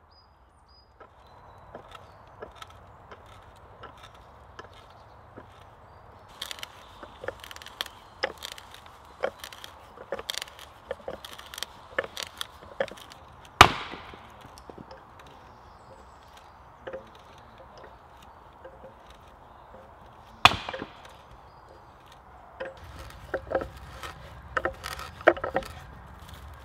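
Axe blows on wood, chopping and splitting logs: irregular sharp knocks, with two much louder splitting cracks about halfway and about three-quarters of the way through, and a quicker run of knocks near the end.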